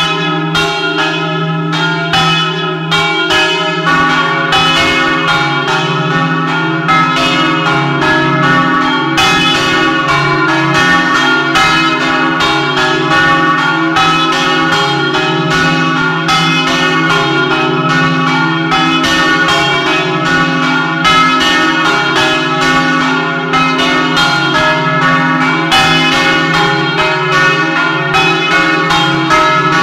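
Several large bronze church bells swinging under electric drive and ringing together in a festive doppio peal, heard close up in the belfry: a dense, continuous run of overlapping clapper strikes over the bells' sustained hum.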